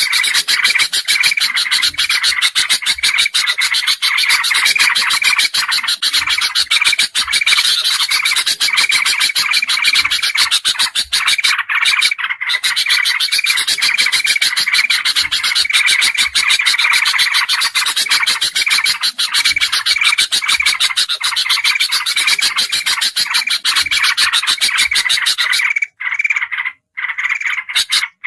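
Bird-lure recording of agitated bulbuls, kutilang emas, kutilang jambul and trucukan (yellow-vented bulbul) mixed together: a loud, dense, unbroken chatter with a short call note repeating over and over, broken by a few short gaps. It is the noisy 'ribut' alarm chatter played to draw wild birds in.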